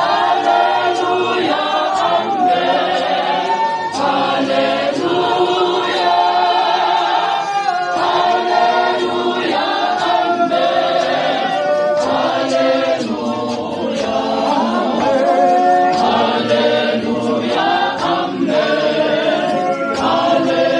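A Zionist church congregation singing together, many voices at once, loud and continuous.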